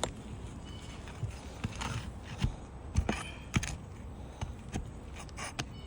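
Metal roofing tool working under asphalt shingles: irregular clicks, taps and light scraping, with a steady low wind rumble on the microphone.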